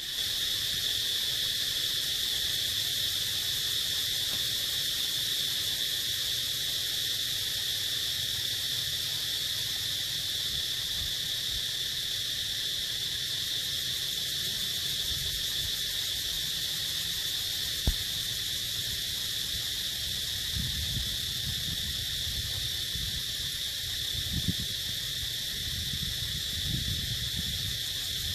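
A steady, high-pitched insect drone, holding one pitch. Low rumbles on the microphone come in the last third, and there is a single sharp click about two-thirds of the way in.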